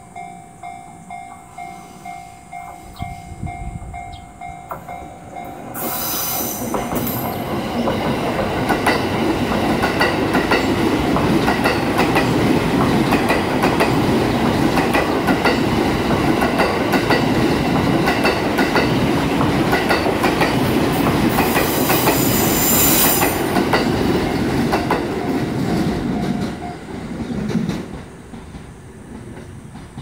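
Japanese level-crossing bell ringing with a steady, evenly repeated ding. About six seconds in, a JR East E231-series electric commuter train passes through the crossing: a loud rolling rumble with rhythmic wheel clatter, and a shrill screech as it arrives and again around twenty-two seconds. The train noise fades out near the end, and the bell is briefly heard again as it clears.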